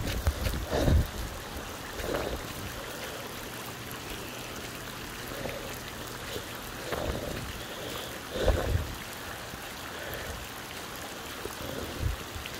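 Heavy rain falling steadily on a flooded street, with runoff water running across the pavement; a few soft low thumps come and go.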